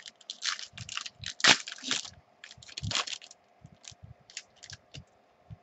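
Foil wrapper of a trading-card pack crinkling and tearing as it is ripped open by hand: a run of irregular crackles, loudest about one and a half seconds in and again about three seconds in, then thinning to scattered crinkles.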